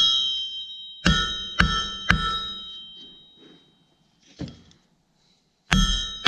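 Blacksmith's hammer striking hot rod stock on an anvil, flattening a short section of the rod. Three ringing blows land about half a second apart, a single lighter knock follows a couple of seconds later, and the blows start again near the end.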